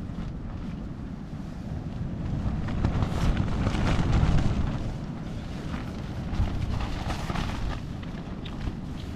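Strong wind buffeting the camera microphone in rumbling gusts, swelling loudest about three to four and a half seconds in.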